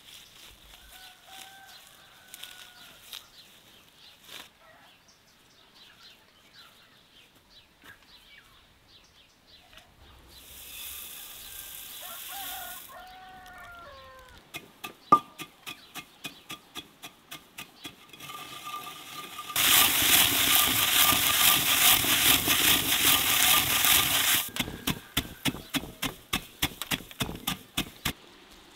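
Black peppercorns poured rattling into a stone hand grinder, then ground by turning the upper stone: a run of regular clicks, then a loud gritty grinding rasp lasting about five seconds, easing back to clicks near the end. Bird calls in the first part.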